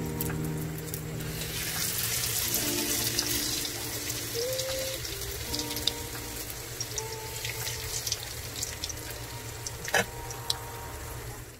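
Banana spring rolls (turon) frying in hot oil: a steady sizzle with scattered small pops and crackles, with soft background music. One sharp click or knock about ten seconds in.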